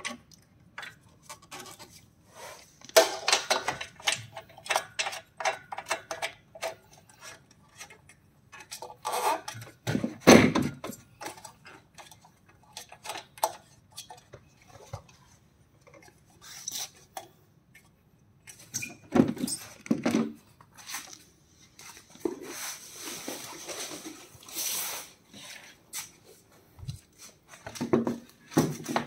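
Handling noises of a folding treadmill being assembled by hand: runs of clicks and light knocks as a plastic knob is screwed into the upright post, a few heavier thuds, and rustling about two-thirds of the way through.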